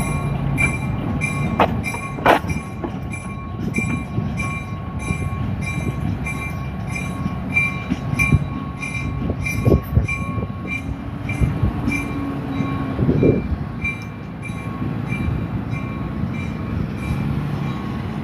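Strasburg Rail Road locomotive #8618 and its cars moving slowly while switching: a steady low rumble with a few short wheel squeals and clanks. Over it, a road-crossing signal bell rings steadily about two to three times a second, fading near the end.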